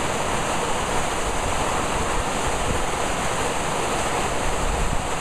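Heavy rain pouring down in a storm: a loud, steady, even rush of noise with no breaks.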